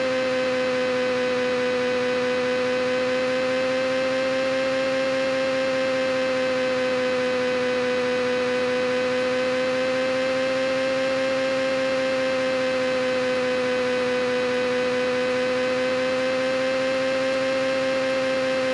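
Steady, unbroken hum with one strong pitch and many fainter overtones, wavering only very slightly in pitch.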